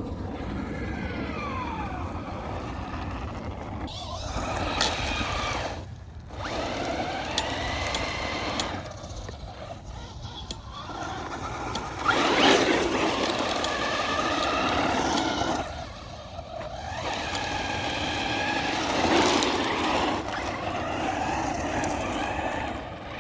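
Traxxas Rustler 4x4 VXL RC truck's electric motor whining as it speeds up and slows down in repeated bursts. There are short pauses about six seconds in and again near the middle, and the loudest surges come just past halfway and near the end.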